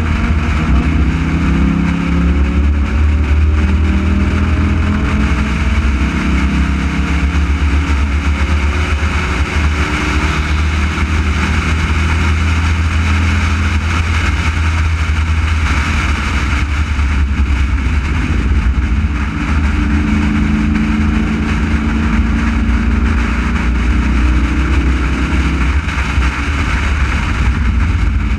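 Race car engine running hard at speed, heard on board over steady wind and road noise; its pitch climbs in the first few seconds as the car accelerates and shifts up and down through the rest of the lap section.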